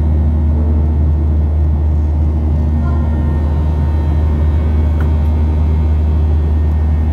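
Steady low drone of a passenger plane in flight, engine and airflow noise heard inside the cabin.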